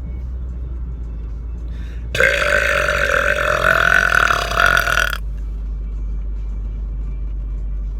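A man's long, loud burp lasting about three seconds, starting about two seconds in, over the steady low rumble of a car's cabin.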